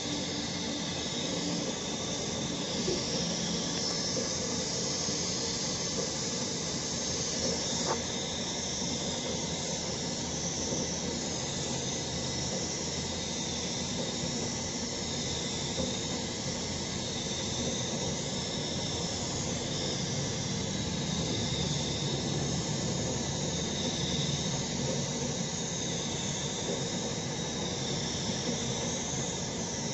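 Gravity-feed paint spray gun hissing steadily with compressed air as it sprays paint onto a car body panel, with a high whistling note that wavers slightly.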